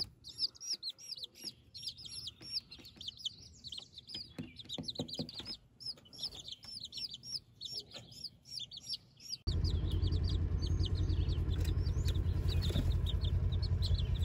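Bantam chicks peeping steadily: many short, high, arched peeps, several a second. About two-thirds of the way through, a steady low rumble starts under the peeping and carries on to the end.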